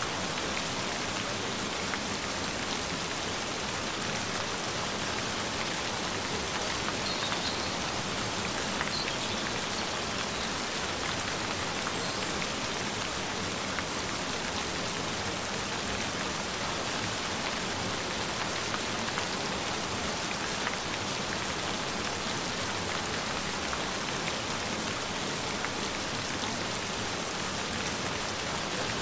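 Gentle rain falling steadily: an even, unbroken hiss of many small drops, with no thunder or breaks.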